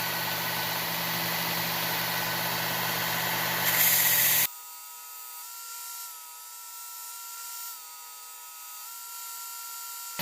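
Work Sharp Ken Onion belt knife sharpener running with a steady motor hum while a knife blade is ground against the abrasive belt. The grinding gets louder and then cuts off abruptly about four and a half seconds in, leaving only a faint, steady whine.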